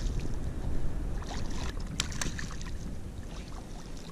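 Wind buffeting the microphone, with small splashes and sharp water clicks as a hooked fish is scooped out of the sea in a landing net beside an inflatable boat.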